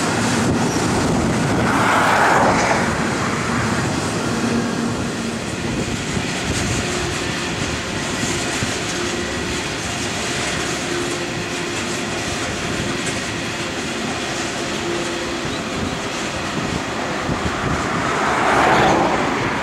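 Loaded coal train's hopper wagons rolling past, a steady sound of steel wheels on rail that swells louder briefly about two seconds in and again near the end.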